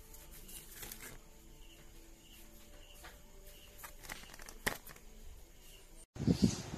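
Light clicks and crinkles of a flash-drive blister pack and its card backing being handled, over faint steady tones. Near the end the sound cuts abruptly to a louder stretch with a couple of low thuds.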